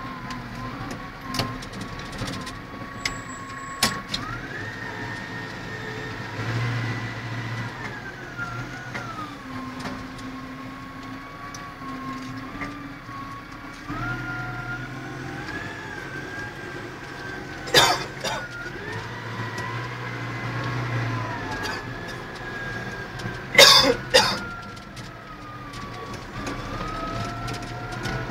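Massey Ferguson 5455 tractor's diesel engine running under way, heard from inside the cab: a steady low hum with a whine that rises and falls in pitch as the speed changes. A sharp knock comes a little past halfway, and a louder cluster of knocks comes near the end.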